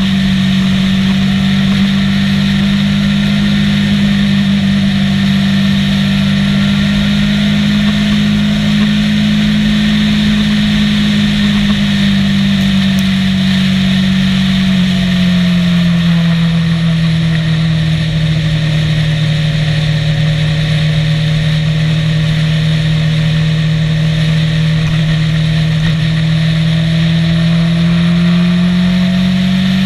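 Motorcycle engine running at steady cruising speed, with wind and road noise rushing past. The engine note drops a little about halfway through as the bike eases off, and rises again near the end.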